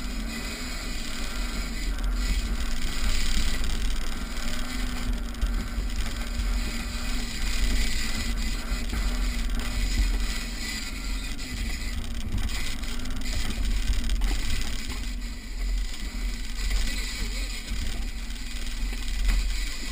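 Off-road 4x4 driving along a rough dirt track, heard from on board: the engine runs at a fairly steady pitch under a heavy, uneven low rumble of road and body noise from the bumps.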